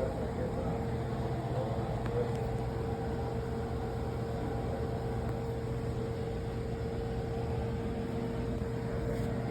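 Steady mechanical hum and hiss with one constant tone, unchanging throughout.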